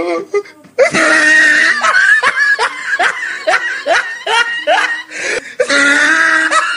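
A person laughing hard: a loud, rapid run of laughs, about three a second, starting about a second in.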